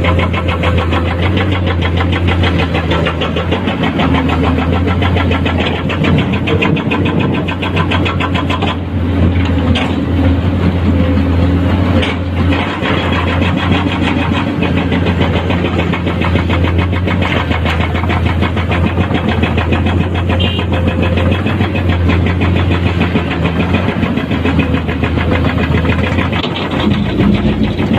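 Komatsu PC210-10 hydraulic excavator's six-cylinder diesel engine running steadily under working load while it digs and loads limestone, with a few sharp knocks partway through.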